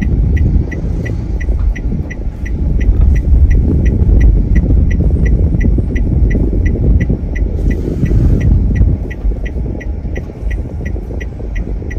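Steady low rumble of a car's engine and tyres heard inside the moving cabin, with the turn-signal indicator ticking evenly about three times a second.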